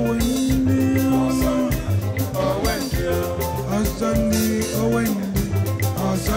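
Upbeat dance music with singing over a steady drum beat and bass line.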